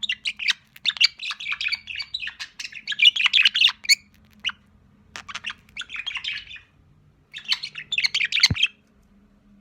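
Young budgerigar chattering: rapid, scratchy chirps and warbles in bursts with short pauses between them, falling silent near the end.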